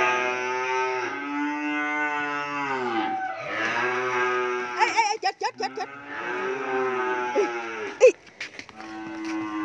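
Cattle mooing over and over in long drawn-out calls, one after another. A burst of sharp knocks and rattles comes about five seconds in, and a few more near the end.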